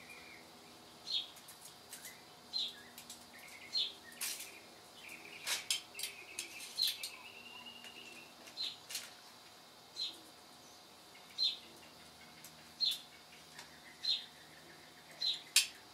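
A bird chirping, one short high note about every second and a half. In between come a few sharp clicks and taps, the loudest sounds.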